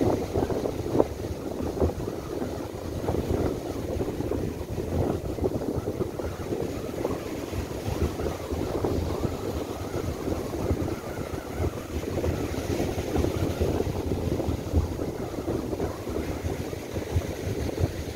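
Near-gale wind gusting on the microphone, with rough surf breaking and washing up a sandy beach.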